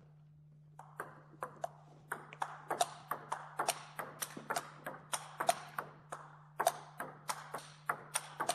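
Table tennis rally: a ping-pong ball clicking off rackets and bouncing on the table, about three knocks a second, starting about a second in, over a faint steady low hum.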